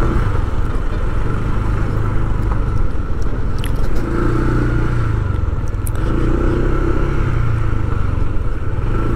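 A vehicle engine running steadily while on the move, with a low rumble and road noise.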